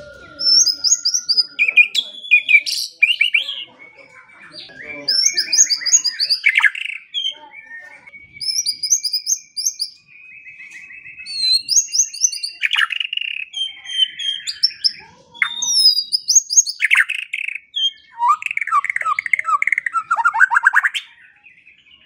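White-rumped shama singing a varied song of fast trills and sweeping whistled phrases, with a long held whistle about eight seconds in. Near the end comes a rapid run of sweeping notes, then the song stops.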